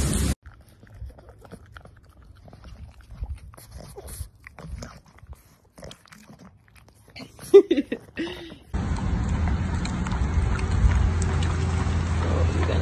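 Dogs licking ice cream: scattered wet smacks and lip clicks, with a few short whine-like sounds shortly before the middle-to-late part. About nine seconds in, a steady low rumble takes over.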